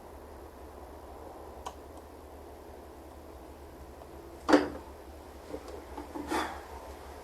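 Hard objects handled on a work surface: one sharp knock about halfway through, followed by a few light clicks and a short scrape.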